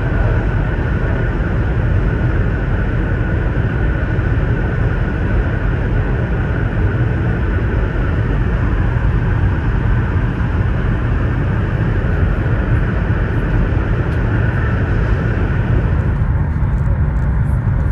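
Steady, loud cabin noise of a Chinese high-speed bullet train at about 346 km/h (215 mph), heard from inside the carriage, heaviest in the low range. About two seconds before the end the higher hiss eases off a little.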